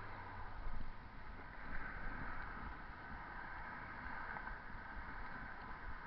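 Steady wind rush and rolling road noise from a bicycle being ridden over pavement, heard on a camera mounted on the bike.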